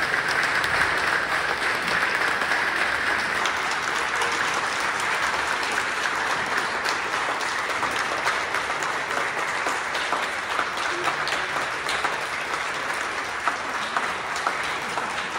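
Audience applauding, a sustained burst of many hands clapping that eases off slightly over its course.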